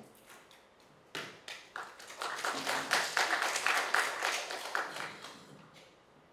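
A small audience clapping: a few scattered claps about a second in, swelling into brief applause and dying away near the end.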